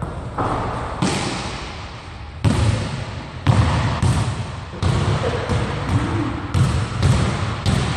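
A basketball dribbled on a hardwood gym floor, with sharp bounces coming unevenly about once a second. Each bounce echoes in the large hall.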